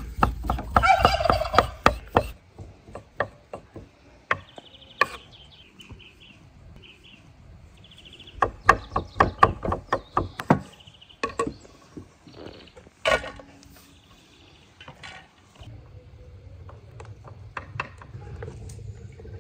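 Knife chopping cooked meat on a wooden cutting board: sharp knocks in quick runs near the start, around the middle, and once more a few seconds later. A turkey gobbles in the first couple of seconds. A low steady rumble comes in near the end.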